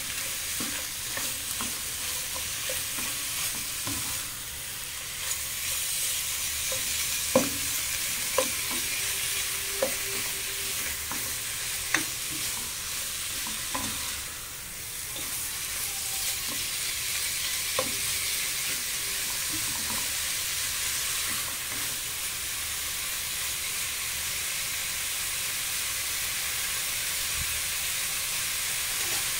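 Diced chicken and onions sizzling steadily as they fry in a pot, stirred with a spatula, with a few sharp clicks and knocks against the pot in the middle.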